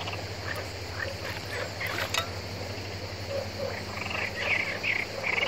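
Frogs calling: scattered short calls, several coming in quick succession near the end. A single sharp knock about two seconds in.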